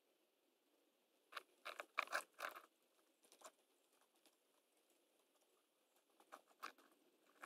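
A rat right at the camera makes faint quick clicks and scratches in short clusters, one starting about a second and a half in and another near the end.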